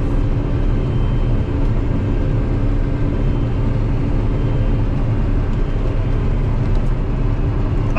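Combine harvester running steadily, a constant low engine drone with a few steady hum tones.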